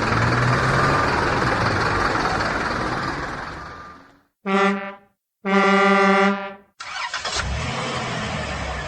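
A loud rumbling vehicle noise fades away. Then a vehicle horn sounds twice, a short blast followed by a longer one. After a brief pause, an engine starts running.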